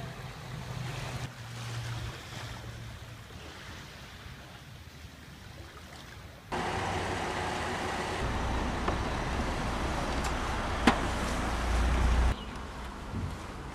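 Faint wind and water noise, then a sudden switch to a louder steady rumble of a Chevrolet SUV, with a single sharp car-door click about eleven seconds in.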